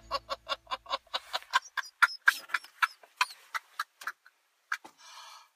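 A man laughing uncontrollably in rapid, gasping bursts, fast at first, then slowing and stopping near the end: the pathological laughter of pseudobulbar affect.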